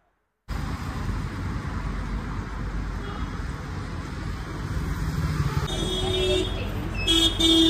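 Steady street traffic noise with a low rumble, starting after a brief silence. Near the end, a few short horn toots.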